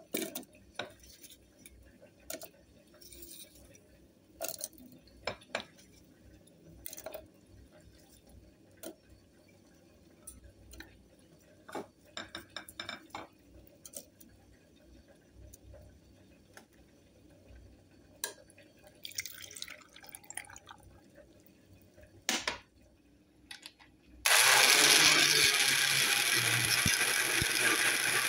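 Cucumber slices and jicama chunks clatter one by one into a plastic blender jar, with a brief pour of water near the middle. About 24 seconds in, the countertop electric blender switches on and runs loud and steady, blending cucumber, jicama and water into juice.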